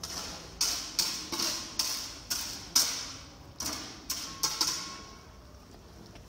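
A series of about nine sharp knocks or taps over some four seconds, irregularly spaced at roughly two a second, each ringing out briefly.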